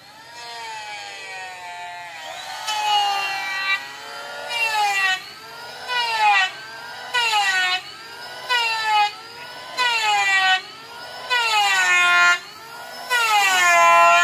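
Handheld electric power tool working wood in repeated short passes, about one every second and a half. Its motor whine dips in pitch under each cut and recovers between cuts.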